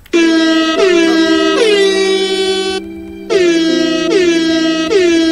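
Loud, brassy, horn-like music from the soundtrack of an online video: held notes, each starting with a short downward swoop, about one every 0.8 seconds, in two phrases with a brief break about three seconds in.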